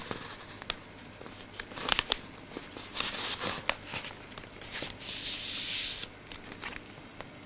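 Cardboard LP record sleeves being handled and slid against each other: swishing scrapes, loudest around three and again five to six seconds in, with several sharp taps and clicks.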